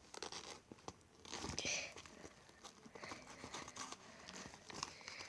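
Rustling and light clicking as a small purse is opened and its contents rummaged through, with a louder crinkly rustle about one and a half seconds in.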